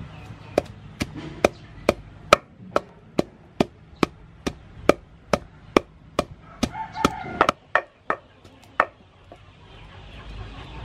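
Tall wooden pestle pounding sliced lemongrass in a large mortar: a steady run of dull knocks, a little over two a second, stopping about nine seconds in.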